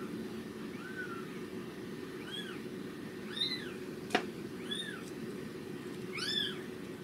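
A newborn kitten's high-pitched mewing squeaks, about six short calls that rise and fall, played back from a film over computer speakers. There is a sharp click about four seconds in.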